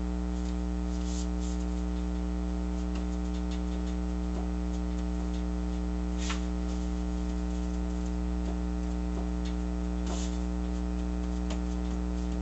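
Steady electrical mains hum with a stack of buzzing overtones. A couple of soft brushing sounds about six and ten seconds in come from gloved hands smoothing the paper bellows cover down onto its glued liner.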